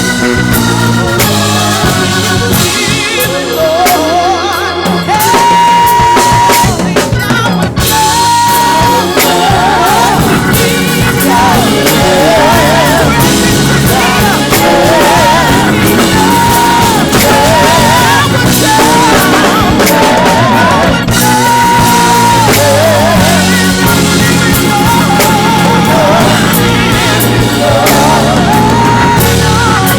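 Live gospel praise-band music driven by a drum kit, with bass drum and snare keeping a steady groove under held, wavering melody notes.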